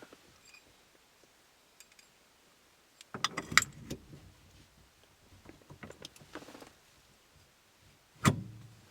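Metal parts of an aftermarket steering-wheel quick release hub clinking and rattling as they are handled and fitted, in two bursts of clicks, then one loud sharp clack near the end as the part goes on.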